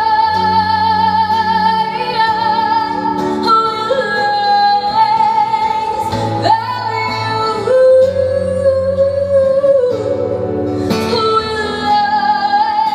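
A song with a woman singing long held notes with vibrato over guitar and bass accompaniment. The music cuts off suddenly at the end.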